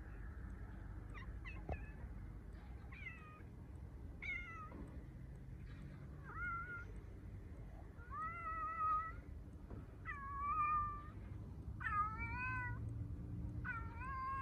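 Cat meowing over and over: a string of meows a couple of seconds apart, the later ones longer and louder.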